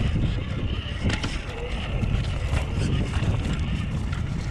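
Radio-controlled car driving over beach pebbles: a steady low rumble with many small clicks and rattles of stones under the wheels, and wind buffeting the microphone.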